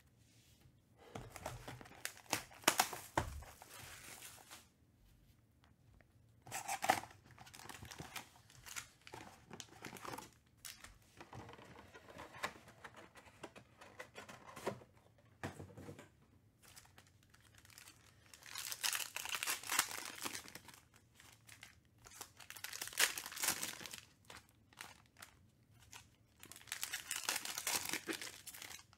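Panini Mosaic basketball card packs and their box being torn open and crinkled by hand: several bursts of foil and wrapper tearing and crinkling with quieter handling between.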